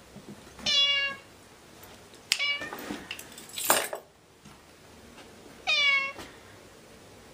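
Domestic cat meowing three times, each meow short. A brief, loud, noisy rush comes about three and a half seconds in, between the second and third meows.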